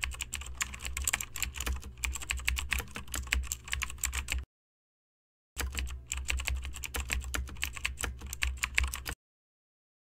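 Fast typing on a keyboard: a dense run of clicks over a low hum lasting about four and a half seconds, a one-second silent gap, then a second run of about three and a half seconds that cuts off about a second before the end. It is a typing sound effect laid under title text that appears letter by letter.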